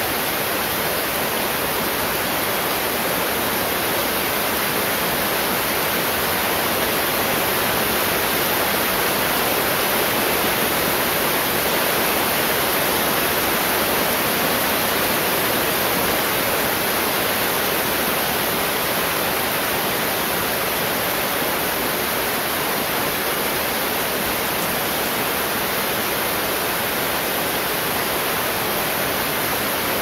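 Heavy rain falling steadily, a dense even hiss.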